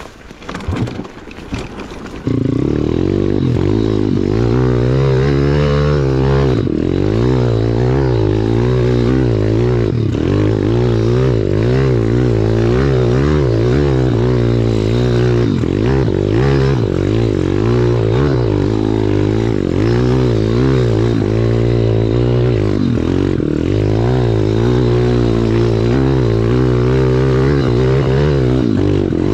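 Pit bike's single-cylinder four-stroke engine pulling hard under throttle as the bike climbs a steep dirt trail, heard from on the bike. A little light clattering comes first; about two seconds in the engine opens up and stays loud, its pitch wavering with the throttle.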